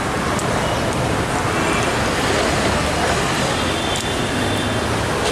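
Steady roadside street noise, mostly traffic, with a few faint clicks.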